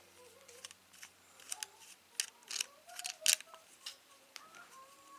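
Light irregular clicks and scrapes of plastic parts being handled as a GoPro camera is screwed into a tripod mount, with a faint squeak between the clicks.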